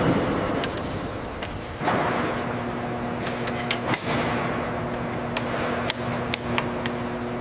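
Sharp metallic clicks and knocks of fittings being handled, about a dozen scattered through, over a steady machine hum that sets in about two seconds in after a rushing onset.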